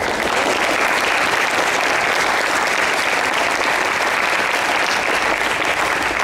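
Audience applauding: a dense patter of many hands clapping that breaks out suddenly and holds steady.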